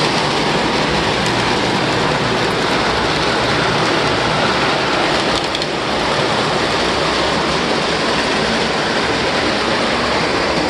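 Several O-gauge electric model trains running around the track together, making a steady rattling whir of wheels and motors, with a few faint clicks.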